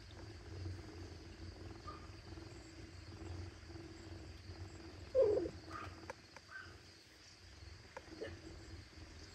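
A kitten gives one short mew about five seconds in, a few faint small squeaks and clicks following. Underneath runs a faint steady low hum and a thin high whine.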